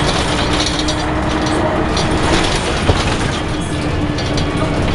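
Scania L113CRL bus under way, heard from inside the saloon: diesel engine drone and road rumble with the body and fittings rattling, a bus the uploader calls a rattlebag. A steady hum fades out about three and a half seconds in, and there is a single knock about three seconds in.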